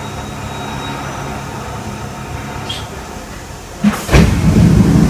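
Stopped Kintetsu 1000 series commuter car humming steadily, with a small click partway through. About four seconds in comes a sharp click, then a loud rush of air and rumbling as the car's pneumatic doors work.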